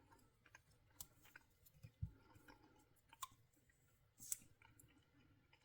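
Near silence with a few faint, scattered clicks and taps; the sharpest comes about four seconds in.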